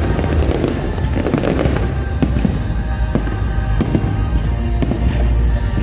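Aerial fireworks going off in many irregular bangs and crackles over loud music with a heavy bass.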